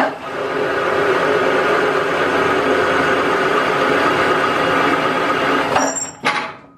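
Metal lathe running under power while a carbide threading insert single-point cuts the second pass of a thread on a high-tensile steel bolt: a steady mechanical whine of motor and gears with the cutting noise. It stops about six seconds in.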